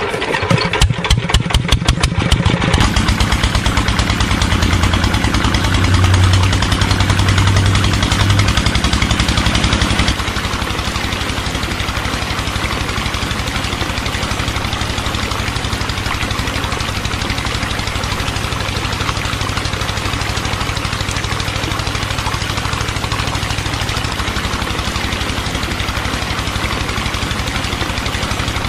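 Miniature DIY model tractor's small engine unit switched on: rapid regular knocking pulses that quicken over the first few seconds, then a steady engine-like running rhythm that drops slightly in level about ten seconds in.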